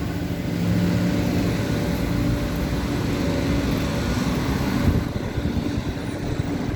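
Steady mechanical hum of a running motor, with low, even tones over a rumble, and a single knock about five seconds in.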